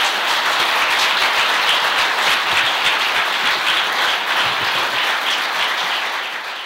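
Audience applauding, dense clapping that eases off near the end.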